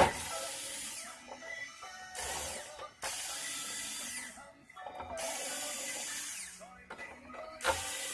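Electric screwdriver running in about four or five short bursts of a second or so each, backing out the screws that hold the mask on an LED display module.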